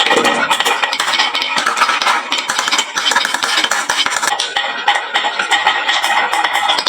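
Many marbles rolling and clattering down a wooden marble run: a dense, continuous rattle of small clicks and clinks as they knock against the wood and each other.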